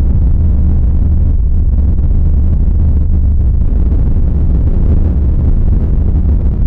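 A creepy ambient sound effect: a loud, steady, deep rumbling drone with no breaks or changes.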